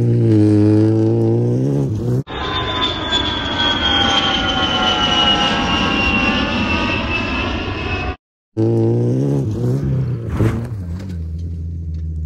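Small car engine revving hard as it charges along a dirt run. It is cut off by an added aircraft sound effect, a high whine falling slowly in pitch for about six seconds. Then the car engine revs again, with one sharp knock about two-thirds of the way through.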